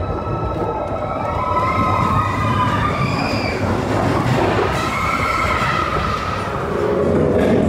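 Expedition Everest roller coaster train rumbling along its track, with riders letting out long, high screams that rise and fall over the rumble.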